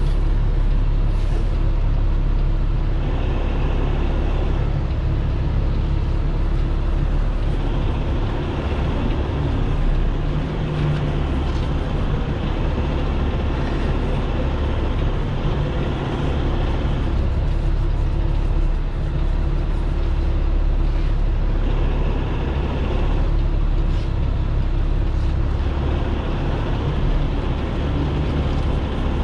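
Heavy tow truck's diesel engine running at a low steady drone, heard from inside the cab as the truck reverses slowly.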